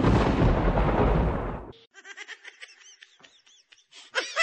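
Thunderclap sound effect: a loud, deep, noisy blast lasting about a second and a half that cuts off abruptly.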